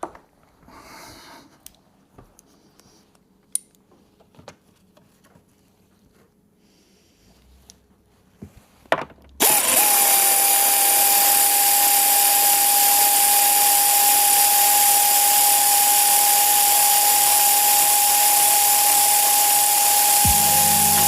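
A few quiet clicks and knocks of handling, then about nine seconds in a power drill starts and runs without pause, a steady whine over loud noise, as the bolts holding the sofa arm are undone.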